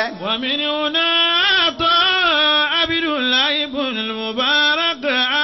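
A man's voice chanting in a sung, melodic style, with long held notes that slide up and down.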